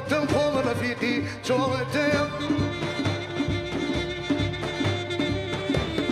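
Kurdish folk ensemble playing live: a man sings an ornamented, wavering melody for about the first two seconds, then the instruments carry on without the voice, a held melody line over hand drums: frame drum, goblet drum and a large double-headed drum.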